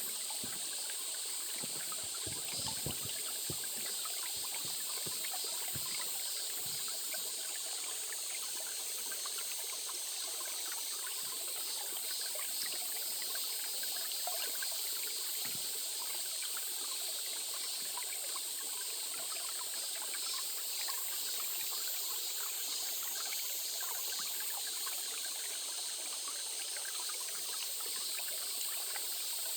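Stream water trickling and babbling steadily over rocks.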